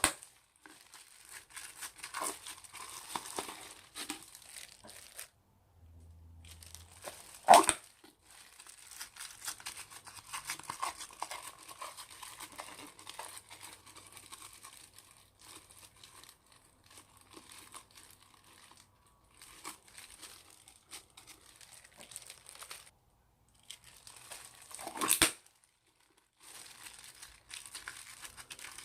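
Old slime being stretched, pulled apart and squeezed by hand, giving a continuous crackling, tearing sound, with two loud sharp snaps or slaps, one at about 7.5 seconds and one at about 25 seconds.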